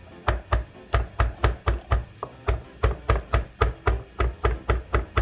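Chef's knife slicing a shiitake mushroom into thin strips on a wooden cutting board, the blade knocking on the board in a steady rhythm of about four cuts a second.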